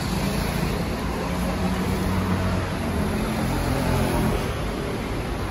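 City street traffic: road vehicles going by in a steady rumble, with a low engine hum from one nearby vehicle through the middle.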